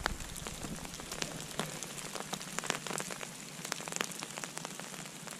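Rain falling on an umbrella overhead: a steady hiss of rain with many irregular sharp taps of drops hitting the fabric.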